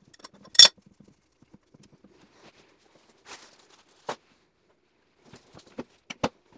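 Hand tools, pliers and a wrench, clicking and knocking against metal while loosening a toilet's floor bolts. A sharp clack about half a second in, then a handful of softer clicks and knocks, two of them close together near the end.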